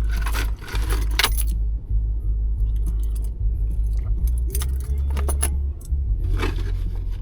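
A bunch of keys jangling and clinking in several short bursts, over a low steady rumble.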